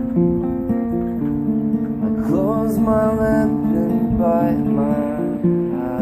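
Acoustic guitar picked in a repeating pattern of held notes. From about two seconds in, a sliding melodic line plays over it and drops away shortly before the end.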